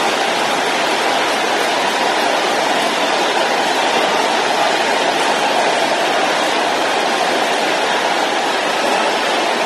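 A large congregation praying aloud all at once, many voices blending into one steady wall of sound with no single voice standing out.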